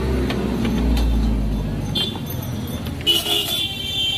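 Street traffic: a vehicle engine rumbling low for the first two seconds, then a short, high-pitched horn toot about three seconds in.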